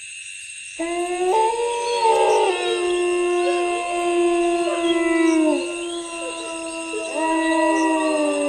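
Dogs howling in long, drawn-out howls that overlap one another: one falls away about five and a half seconds in, and another rises in about a second and a half later. A steady high-pitched whine runs beneath them.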